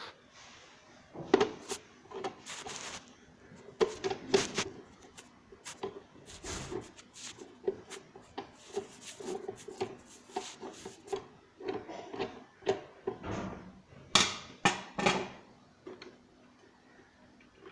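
Irregular clicks, knocks and rattles of a plastic mixer grinder's housing and parts being handled and worked on while it is taken apart.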